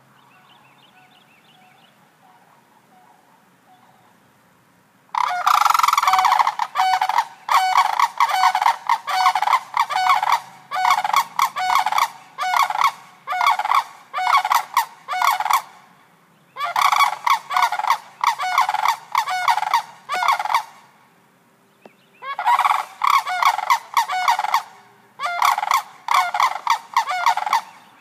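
A pair of sandhill cranes calling in loud rattling bugles, in several bouts starting about five seconds in.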